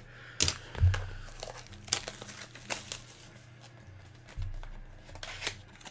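Foil wrapper of a trading card pack crinkling and tearing as it is handled and opened by hand, in scattered short crackles, with two soft low thumps about a second in and near the end.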